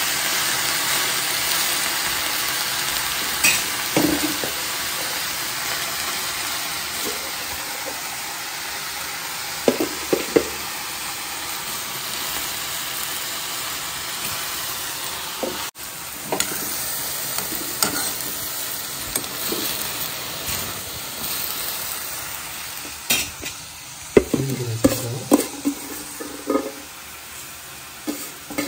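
Chopped spinach sizzling in a steel kadai as a spatula stirs and turns it, with scattered metallic clinks and knocks against the pan. The sizzle slowly fades, and the knocks bunch together near the end.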